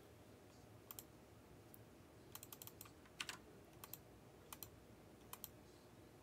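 Faint, scattered typing on a computer keyboard: short sharp keystrokes, singly and in quick little runs, the loudest a little past the middle.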